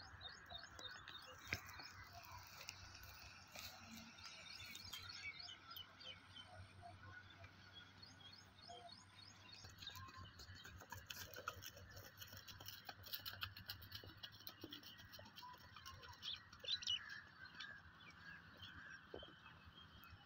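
Faint, scattered bird chirping over quiet rural background noise.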